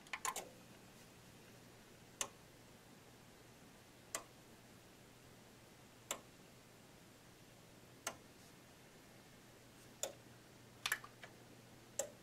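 Monster Power HTPS 7000 power conditioner powering up: a button press, then sharp relay clicks about every two seconds as its outlet banks switch on in sequence, with a few clicks close together near the end. A low steady hum comes on just after the press.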